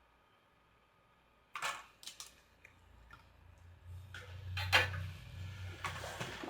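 Small sharp clicks and taps of metal tools on a circuit board during desoldering with solder wick, scattered a few times, with a low hum coming in about four seconds in.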